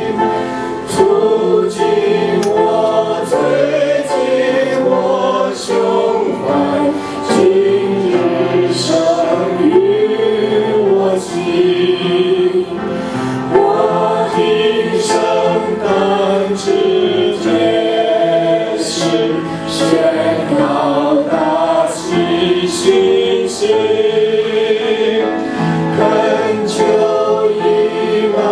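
Small mixed group of men and a woman singing a Christmas carol together through microphones, one held melody after another without a break.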